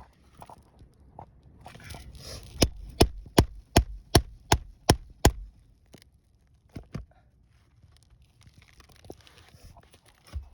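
A hammer striking a nail-pulling tool worked under asphalt shingles to get at the nails. About two and a half seconds in come eight sharp strikes in quick succession, after some scraping. A few lighter knocks come later.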